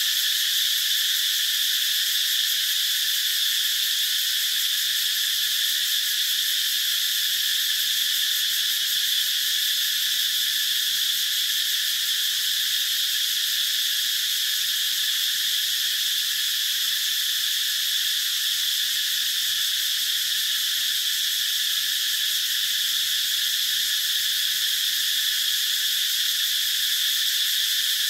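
Cicadas calling: a steady, unbroken high-pitched drone that holds the same level throughout. This is the male cicadas' song, mostly made to attract females.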